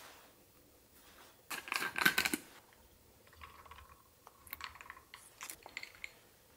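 Milk tea poured from a glass bottle onto ice cubes in a drinking glass: a short clattering burst of ice and glass about two seconds in, then softer pouring and scattered clinks and taps as the bottle and glass are handled on the table.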